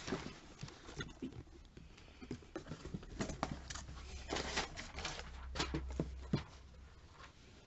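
Faint, irregular rustling and light knocks as products and packaging are handled and taken out of a cardboard box.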